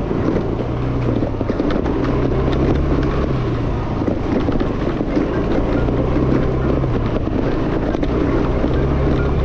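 Yamaha Fascino scooter's single-cylinder engine running under way, its hum rising and falling every few seconds with the throttle, with wind rushing over the microphone.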